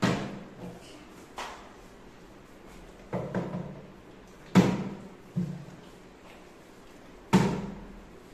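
Small plastic bottle being flipped and landing on a wooden tabletop: a string of sharp knocks, about six, the loudest a little past the middle and near the end.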